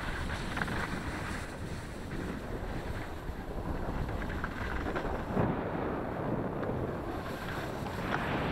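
Wind rushing over a camera microphone while skiing downhill, mixed with skis hissing and scraping over packed snow; it swells louder a couple of times in the second half.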